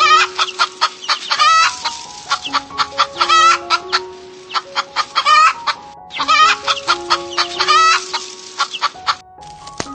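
Chickens clucking and cackling in quick clusters of short calls, over a background music melody of steady held notes.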